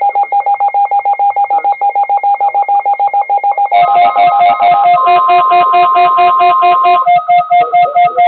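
Loud electronic tones pulsing rapidly, about seven a second, at fixed pitches. A little under four seconds in they drop to a lower pitch with more notes sounding together, and a steady higher tone is held over them for about two seconds.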